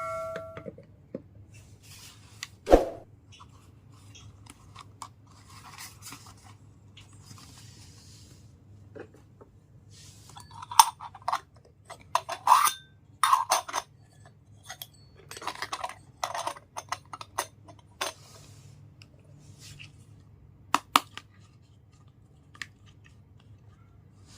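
Small toys and their packaging being handled and unboxed: scattered clicks, taps and crinkling, with a sharper knock about three seconds in and a busy stretch of clicks and rustles in the middle.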